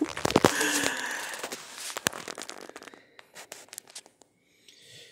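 Cardboard box and plastic packaging being handled and rustled as an airsoft rifle is unpacked, with crinkling and tearing noise for the first second or so, then scattered clicks and taps that die away.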